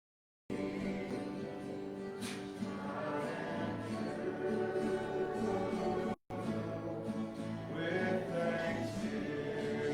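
Congregation singing a worship song with musical accompaniment. It cuts in abruptly about half a second in, after dead silence, and drops out for an instant a little past the middle.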